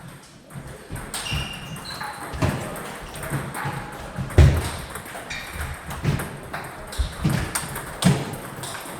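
Table tennis balls clicking off rackets and the table in play, a run of sharp, irregularly spaced knocks with a louder hit about halfway through.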